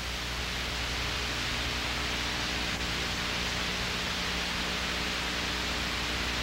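Steady hiss with a low electrical hum beneath it: the noise floor of an old VHS camcorder sound track with no other sound on it.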